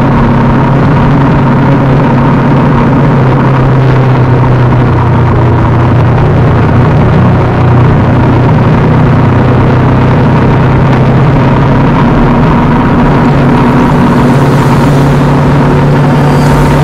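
KTM RC390's tuned single-cylinder engine running steadily at highway cruising speed, its throttle held by a mechanical cruise-control lock, with wind rushing over the microphone.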